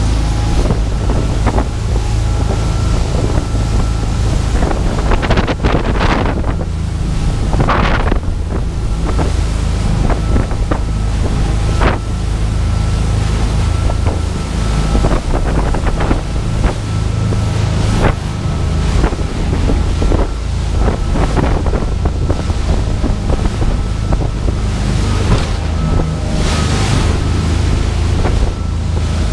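A 27 Albemarle Express sportfishing boat under way at speed on open sea. Its engine drones steadily, wind buffets the microphone, and water rushes and splashes against the hull in surges several times.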